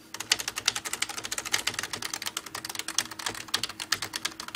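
Fast continuous typing on a cheap generic 10-keyless USB keyboard with laptop-style keys, a rapid run of light key clicks.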